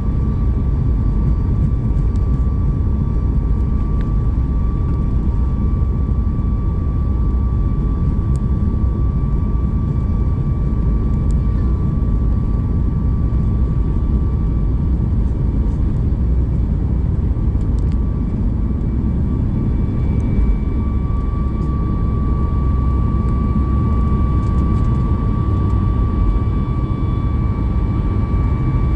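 Cabin sound of a Boeing 737 MAX 8 with its CFM LEAP-1B jet engines running: a steady loud rumble with a steady whine over it. A second, higher whine joins about twenty seconds in.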